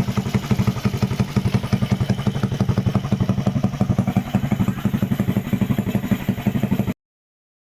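Suzuki Smash 115's single-cylinder four-stroke engine idling steadily through a Daeng Sai4 aftermarket exhaust with a converted elbow pipe, giving an even, rapid popping exhaust note. It cuts off abruptly near the end.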